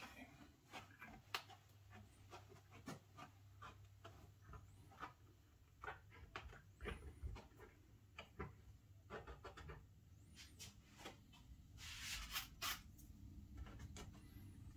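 Near silence broken by faint, irregular taps, clicks and rubbing from hands pressing glued cork roadbed into place, with a longer rub about twelve seconds in.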